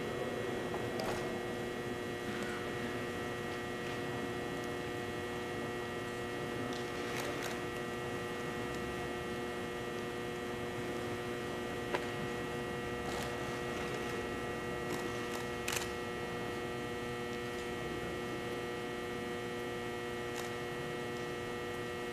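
A steady hum made of several constant tones, with a few faint sharp ticks scattered through it, the clearest about twelve seconds in and near sixteen seconds.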